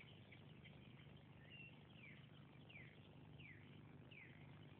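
Very faint animal chirps, high and short, each falling in pitch, repeated about five times at even intervals.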